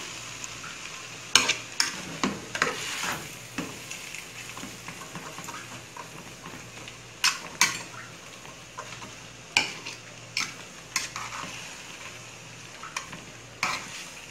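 Spaghetti being stirred and tossed in a large aluminium pot over a faint steady sizzle. A utensil knocks sharply against the pot's sides about a dozen times at irregular intervals.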